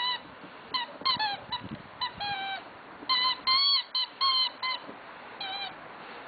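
A rubber squeaky chicken toy squeaking again and again as a cocker spaniel bites down on it: about a dozen short, uneven honking squeaks, some held longer and some dropping in pitch at the end.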